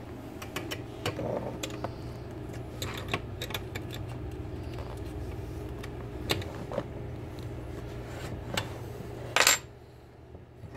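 Scattered light metallic clicks and taps of a hex key and small steel parts as the screws on a Sieg mini lathe's carriage are worked, over a steady low hum. A louder single clank comes near the end, as a steel wrench is set down on the workbench.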